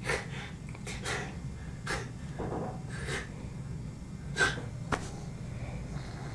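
A few short, quiet breaths from people, irregularly spaced, over a steady low room hum.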